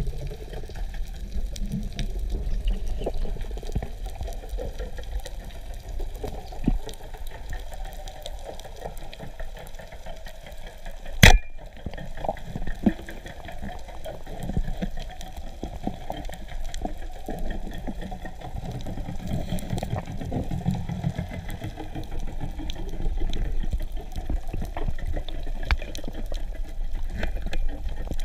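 Underwater sound through a camera housing: a steady low bubbling rumble dotted with small crackling ticks, and one sharp loud click about eleven seconds in.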